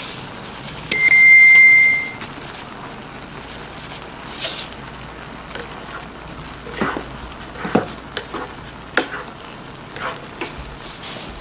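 A steady, high-pitched beep lasting about a second, starting about a second in. Then a metal spoon scrapes and clinks against the pan while shrimp are stirred in a simmering sauce, with a few sharp clicks.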